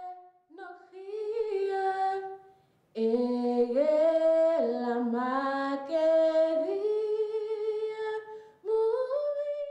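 A woman singing unaccompanied, holding long notes with a slight waver and brief pauses between phrases.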